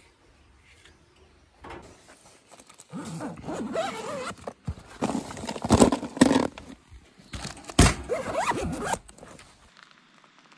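Zipper of a soft-sided cooler being pulled in a few long strokes, with packages and a plastic bottle shifted inside the cooler.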